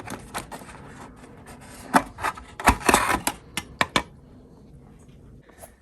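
Kitchen handling noises: a quick run of sharp clicks and rubbing, with a heavier knock just under three seconds in, dying down to faint scraping after about four seconds.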